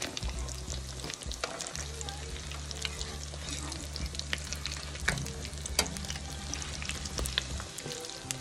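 Salmon patties sizzling and crackling as they shallow-fry in oil in a nonstick pan, with a slotted metal spatula scraping against the pan as they are turned and pressed. Two sharper knocks come about five and six seconds in.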